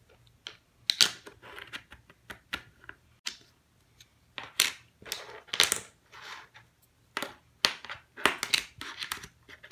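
Plastic interlocking toy building blocks clicking and clacking as pieces are pressed together and set down on a table: an irregular string of sharp clicks.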